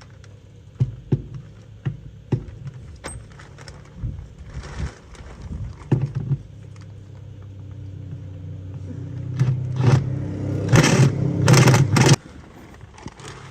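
Metal tool clinks and scrapes on the skid steer's access panel. In the last few seconds a power impact wrench whirs and hammers in loud bursts, running out the panel's bolts, then stops suddenly.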